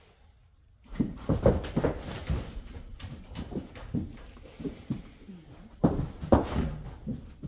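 Irregular thuds and knocks starting about a second in, with the loudest clusters near the start and again near the end: a nervous, unhandled horse moving about on its hooves.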